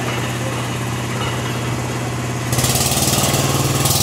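Tractor diesel engine running steadily. About two and a half seconds in, the sound abruptly gets louder and hissier.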